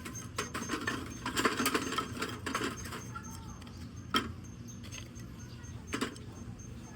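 Firewood burning in a fire pit, crackling and popping in irregular clicks, with a sharp louder pop about four seconds in and another near six seconds.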